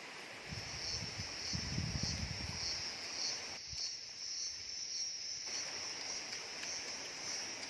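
Insects chirring in a steady, high-pitched drone, with a low rumble in the first few seconds.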